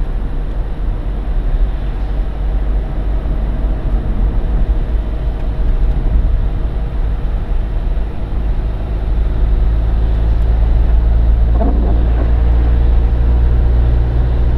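Car cabin noise while driving on a wet road: a steady low engine-and-tyre drone with road hiss, a little louder in the second half, and a brief louder swish near the end.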